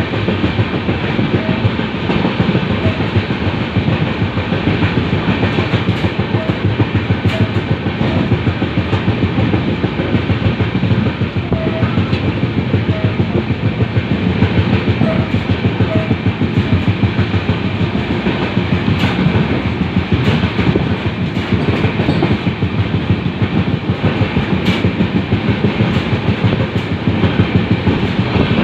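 LHB passenger coaches running at speed on the rails, a continuous rumble with the rapid clatter of wheels over the track.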